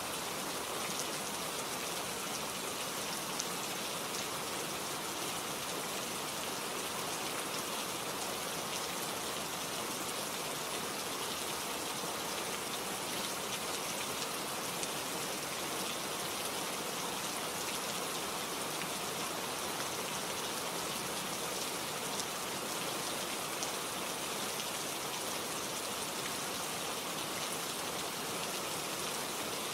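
Steady rain falling, with fine drops pattering on leaves and other surfaces.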